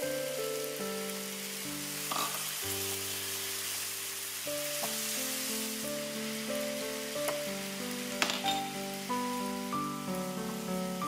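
Hot frying pan of pasta sizzling as pasta cooking water is added, the hiss swelling for a few seconds, with a few sharp clicks. Soft background music plays throughout.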